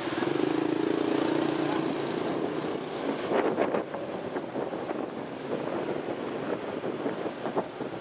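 Motorbike and scooter engines running while riding in heavy two-wheeler traffic, with a steady engine hum for the first couple of seconds. From about three seconds in, wind buffets the microphone in gusts.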